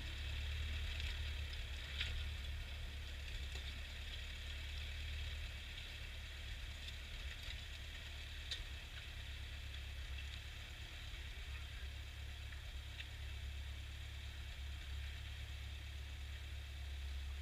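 Ford farm tractor engine running steadily, a low drone that neither rises nor falls.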